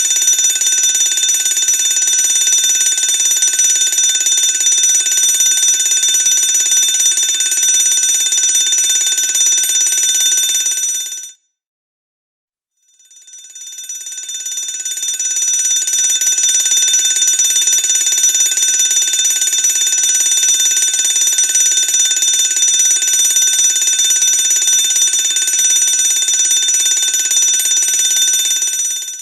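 Fire alarm bell ringing continuously. It stops suddenly about eleven seconds in and, after a second and a half of silence, starts again, swelling up over a few seconds, then cuts off near the end.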